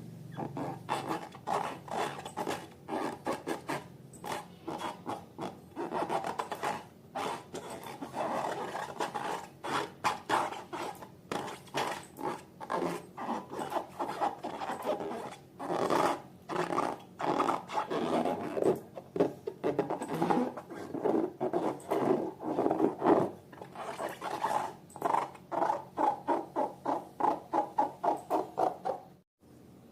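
Slime being squeezed and worked by hand: a long run of short, wet, rubbing strokes a few times a second. The strokes quicken into a fast, even rhythm near the end, then stop abruptly.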